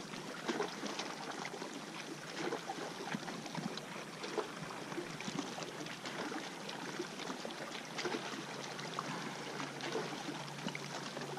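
Water trickling and lapping around a kayak, with many small irregular splashes and ticks.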